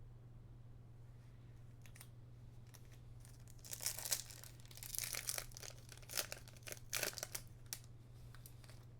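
A foil trading-card booster pack being torn open and its wrapper crinkled, in a run of short rustles about a third of the way in, over a low steady hum.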